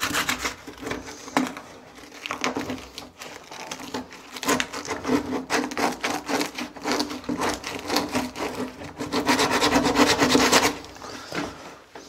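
Rolled-up sandpaper rubbed quickly back and forth inside a drilled hole in a wooden door, rapid rasping strokes that ease off for a couple of seconds early on and stop shortly before the end: the hole is being enlarged by hand for a door latch because no flat wood bit is to hand.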